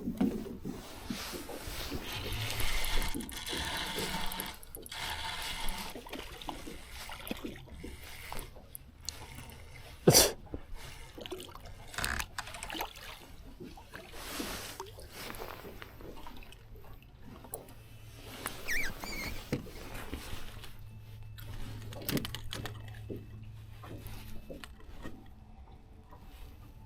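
Scattered clicks, knocks and rustles of gear being handled in a small fishing boat, with one sharp loud knock about ten seconds in.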